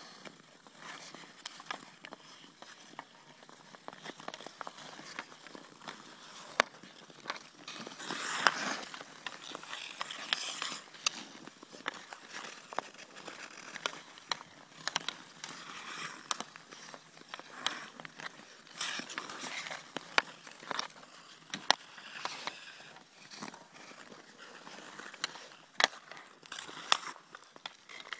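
Ice hockey skates scraping and carving across outdoor rink ice, with sharp clacks of hockey sticks striking the puck and ice every few seconds.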